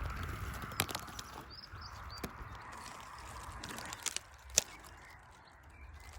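Gorse branches rustling as they are held apart, with a few sharp snaps and clicks, the loudest about four and a half seconds in. A couple of faint, short, high bird chirps sound early on.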